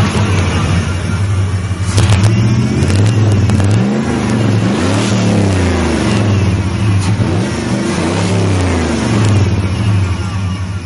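1991 Chevy 1500's cammed 350 V8, bored 40 over with roller rockers, revved several times in quick blips, the pitch climbing and falling back each time before settling toward idle near the end.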